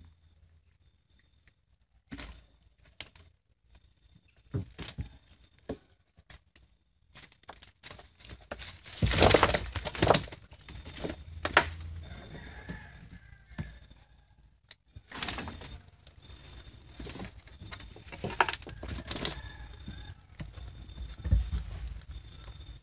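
Rustling and clattering of a collapsible mesh fish trap being shaken out, its catch of fish and shrimp dropping into a foam box in irregular bursts, the loudest about nine seconds in.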